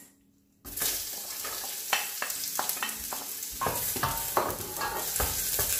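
Sliced red onion and garlic sizzling in hot oil in a stainless steel pot, starting suddenly under a second in, while a spatula stirring them clicks and scrapes against the pot.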